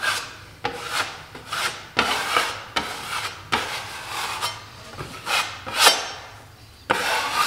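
Wide drywall knife scraping over nearly set, wetted setting-type joint compound as the patch is flattened, in repeated strokes about two a second.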